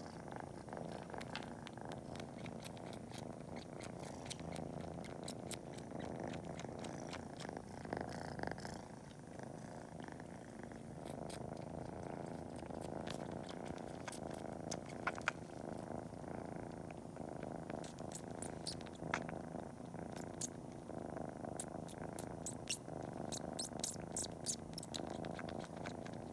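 Kitten purring steadily while it pretends to nurse, with many short wet suckling clicks scattered through, more of them in the second half.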